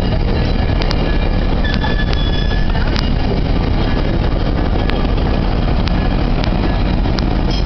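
GO Transit bilevel passenger coaches rolling past at close range: a steady heavy rumble of wheels on rail with scattered sharp clicks, and a brief high whine about two seconds in.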